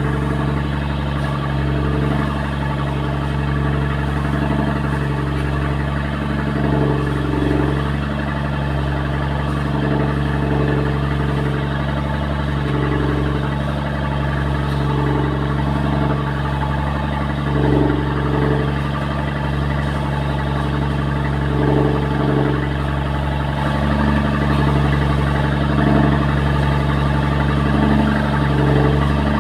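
The boat's engine drones steadily, heard from on board among the passengers, with brief swells in level every few seconds.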